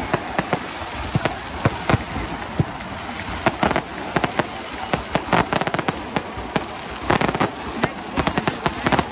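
Fireworks going off in quick succession: a steady stream of sharp bangs and crackles, thickest about three and a half seconds in and again about seven seconds in.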